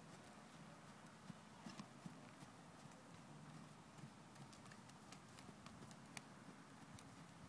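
Faint hoofbeats of a horse trotting on soft arena footing, over a steady hiss.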